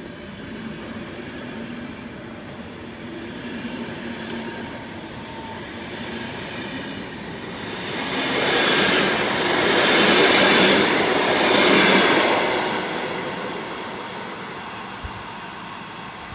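Passenger train pulling out of a station and rolling past on the rails, with wheel and rail noise. It grows loudest about halfway through as the last vehicles pass close, then fades as the train draws away.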